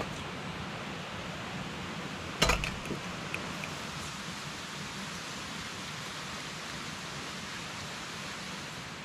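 Steady rush of a mountain creek, with one sharp knock about two and a half seconds in.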